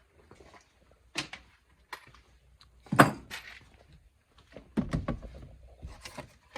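A few scattered knocks and thumps, the loudest about three seconds in, with a short cluster of them near the end.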